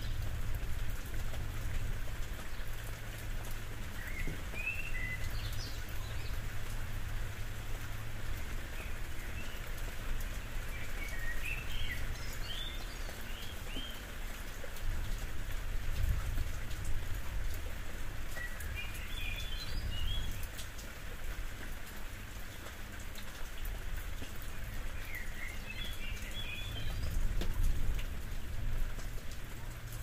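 Steady rain falling on a roof. A bird chirps in short clusters of quick, high notes about every seven seconds, four times.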